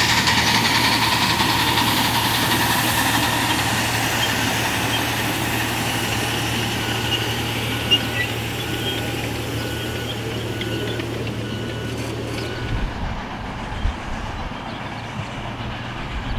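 A 7.25-inch gauge live steam model of a Union Pacific Big Boy locomotive running past, then its string of freight cars rolling by on the rails. The sound slowly fades as the train passes and is quieter and more distant after about thirteen seconds.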